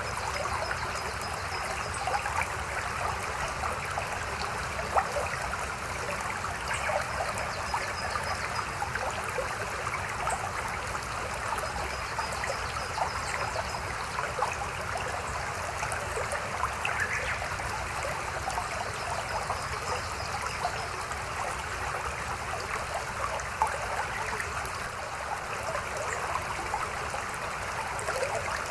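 Steadily babbling river, water splashing and trickling continuously. A faint high chirping trill recurs a few times.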